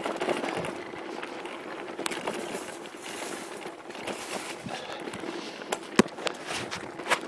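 Mountain bike rattling down a dirt singletrack, heard muffled from a phone tucked in the rider's jersey, with sharp knocks over bumps, the loudest about six seconds in.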